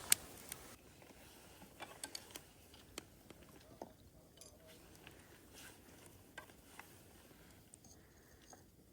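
Faint scattered clicks and light taps from small objects being handled, with one sharp click at the very start.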